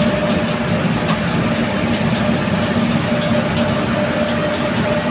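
Steady running noise inside the cab of a moving locomotive: a dense rumble with a constant hum and faint regular clicks.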